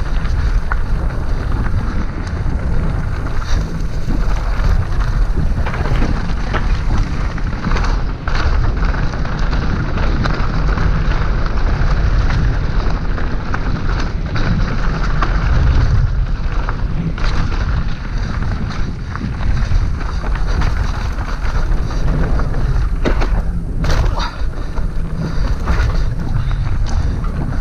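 Wind buffeting the camera microphone and the tyres of a Merida enduro mountain bike rolling over a dirt trail make a loud, steady low rumble. Frequent short clacks and rattles come from the bike jolting over bumps and roots.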